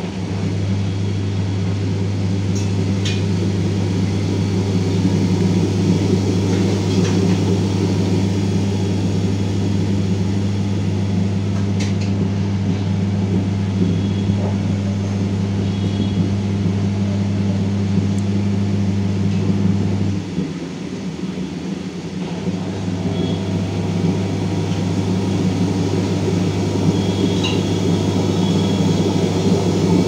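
Samsung front-load washing machine drum spinning, a loud rumble over a steady low hum; the sound dips briefly about two-thirds of the way through, then picks up again. The drum is very noisy on spin, which the technician puts down to worn drum bearings.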